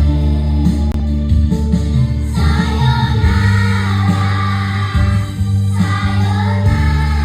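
Kindergarten children's choir singing together over musical accompaniment with sustained low bass notes.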